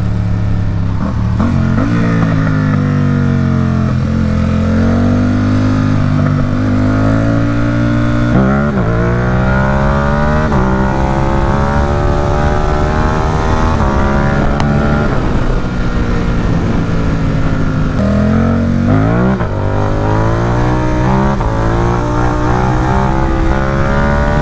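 Ducati SuperSport 950 S's 937 cc L-twin engine under hard throttle in a low gear, the revs climbing and dropping back several times, with the throttle snapped open sharply about eight seconds in and again near nineteen seconds: power-wheelie attempts.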